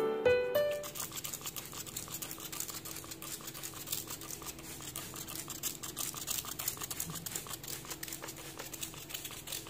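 Piano intro music fades out in the first second. Then a dense, scratchy rubbing and rustling follows as a cloth wipes the tabletop and the glass plant bowl.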